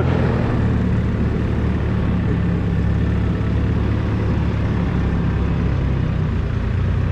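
2010 JCB 531.70 telehandler's 4.4-litre four-cylinder diesel engine running steadily at an even speed.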